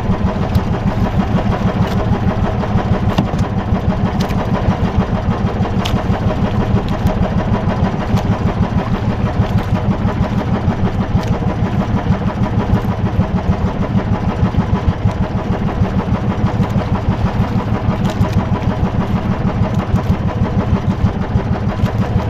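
Small outrigger boat's engine running steadily, a fast, even pulsing beat.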